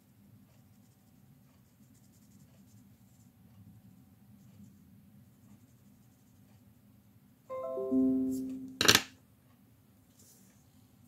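Faint scratching of a watercolour pencil on paper. About three-quarters of the way in comes a brief chord of several notes lasting about a second, ending in a sharp click.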